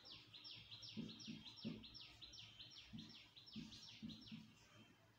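Faint bird calling: a quick run of about a dozen falling high notes, roughly three a second, stopping shortly before the end. Soft taps of a marker writing on a whiteboard come in between the notes.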